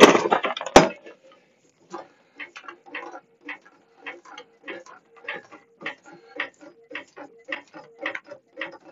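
3-ton aluminum/steel floor jack being pumped to lift the axle. A sharp clank about a second in, then steady rhythmic clicking of about three strokes a second.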